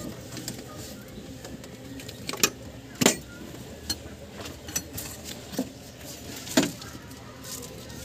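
Hand tools and metal parts being handled at an engine bay: about six separate sharp metallic clicks and clinks, the loudest about three seconds in and again near the end, over a faint steady background.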